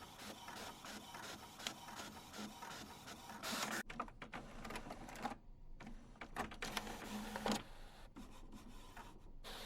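Printer running: an even mechanical ticking rhythm, then from about three and a half seconds in a few louder rushing passes with short breaks between them, before the ticking rhythm returns.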